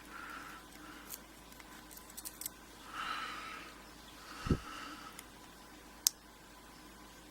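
Small metal clicks and light scrapes of tweezers picking tiny lock pins and springs out of a pin-tumbler padlock cylinder, with a dull knock about four and a half seconds in and a sharp click about a second and a half later.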